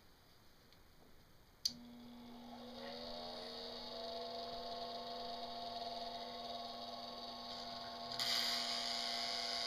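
Lionel 265E Commodore Vanderbilt toy train locomotive's electric motor and transformer powering up: a click as the power comes on, then a steady hum and a motor whine that rises and settles to a steady pitch. About eight seconds in, a hiss joins.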